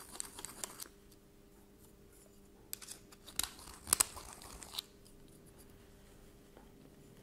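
Hooked steel blade of a hand deburring tool scraping around the edge of a drilled hole in an aluminium bar, shaving off the sharp edge: faint scraping in the first second, then a few short, sharp scrapes around the middle.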